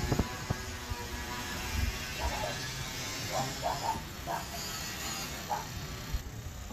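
Carpet-cleaning extraction machine running with a steady motor hum and hiss. A few short, faint voice-like sounds come in the middle.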